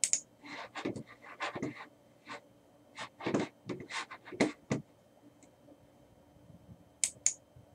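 Faint, irregular clicks and taps of a computer keyboard and mouse, in a scattered run for the first five seconds, then two more near the end.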